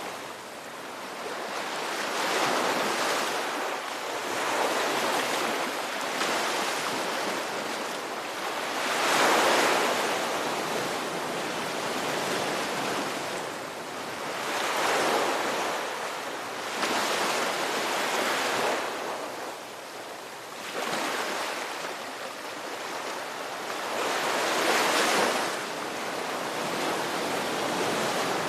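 Ocean waves breaking on a shore, a steady wash of surf that swells and falls back every few seconds, with the strongest breakers about a third of the way in and again near the end.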